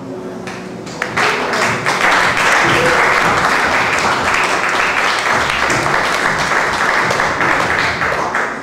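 Audience applauding, starting suddenly about a second in and holding steady, then tailing off at the end.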